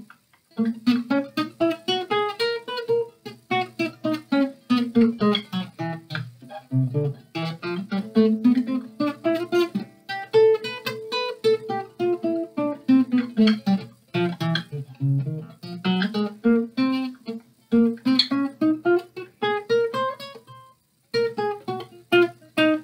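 Cordoba Estudio nylon-string classical guitar played fingerstyle: a steady stream of plucked notes in rising and falling arpeggio runs, with brief pauses just after the start and about 21 seconds in.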